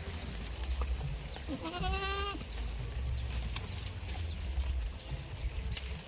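A goat bleats once, a short wavering call a little under a second long, about one and a half seconds in, over a steady low rumble and a few faint clicks.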